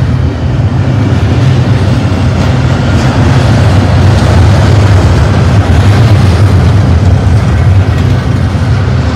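Double-stack intermodal freight train's container well cars rolling past close by: a loud, steady rumble and rattle of steel wheels on the rails.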